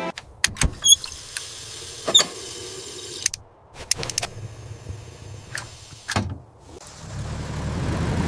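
A series of sharp clicks and knocks, about a dozen spread irregularly over several seconds, one with a short ringing ping about a second in, over a faint low rumble.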